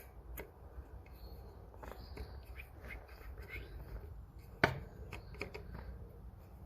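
Small clicks and handling noises of screws being tightened by hand into the mitre saw's rear housing, with one sharp click about four and a half seconds in.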